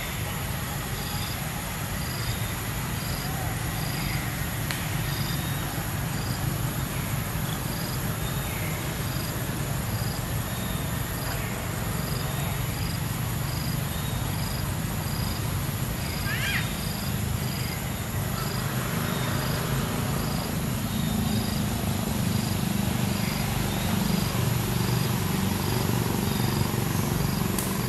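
Outdoor ambience: a steady low rumble, with a short high chirp repeating a little more than once a second and a brief gliding call about halfway through.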